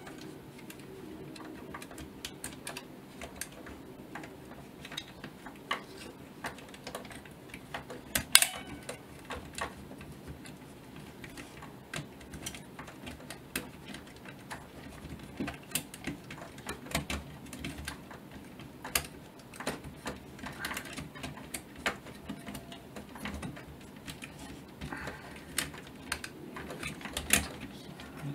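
Small, irregular metal clicks and taps as hands handle and fit parts of a 1936 Zeiss Ikon Super Ikonta folding camera, with one sharper click about eight seconds in.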